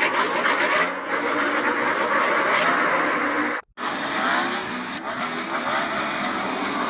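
Race car engine pass-by sound effects played in reverse: dense, loud engine noise with sliding pitch, broken by a short cut to silence a little past halfway.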